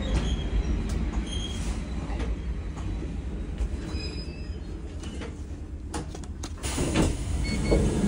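Kishigawa Line electric train running with a steady low rumble, with a few short high tones and several knocks in the last couple of seconds.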